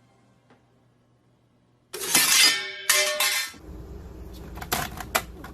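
A sudden crash of breaking glass, two loud ringing bursts about a second apart, then a scatter of small clinks and clatter.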